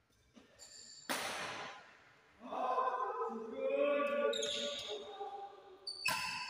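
Badminton rally: sharp racket strikes on the shuttlecock and short high squeaks of shoes on the court floor. In the middle a player's voice calls out for a few seconds, the loudest sound.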